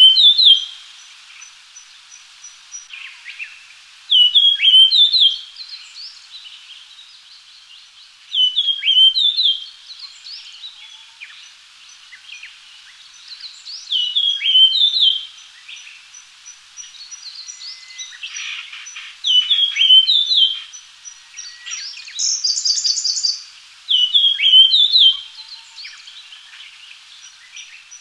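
Japanese grosbeak singing: a short phrase of clear whistled notes, repeated six times about every four to five seconds. A faint, high, even ticking runs underneath, and a brief buzzier call comes near the end.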